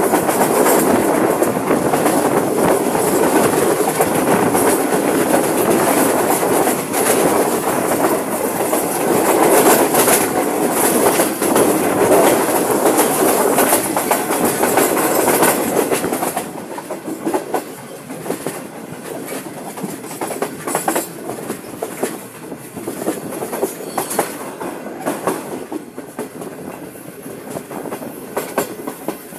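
Sir Syed Express passenger train running on the track, its wheels clattering over the rails. It is loud for the first half, then noticeably quieter from about sixteen seconds in, with sharper clicks standing out.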